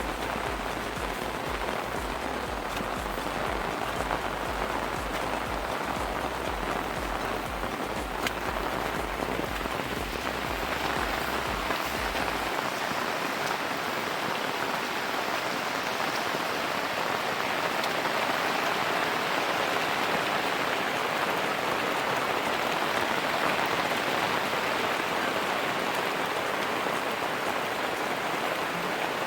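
Steady rain falling, a continuous even hiss of drops on surfaces. A low hum underneath cuts off about twelve seconds in.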